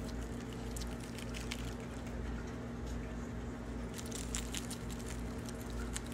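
Guinea pig chewing bok choy leaves: quick, crisp clicks and crunches in short clusters, thickest about four seconds in, over a steady low hum.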